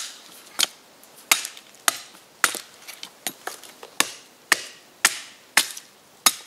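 A blade chopping into a wooden log, about a dozen sharp strikes at a steady pace a little more than half a second apart, as the log is cut to length.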